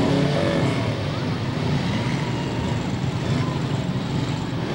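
Several demolition derby cars' engines running and revving together in a dense, steady drone, with pitches rising and falling in the first second.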